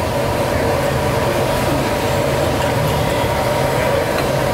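Steady rushing noise of a gas burner running under a large stockpot of boiling broth, with an even low hum beneath.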